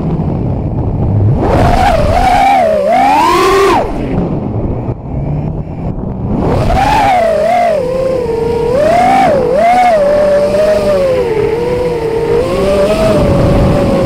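Racing quadcopter's four brushless motors (Racerstar BR2205 2600KV) and props whining, the pitch rising and falling with the throttle, picked up raw by the onboard Runcam 3 camera's microphone. The throttle drops off for about two seconds around four seconds in, then the whine climbs back and wavers on.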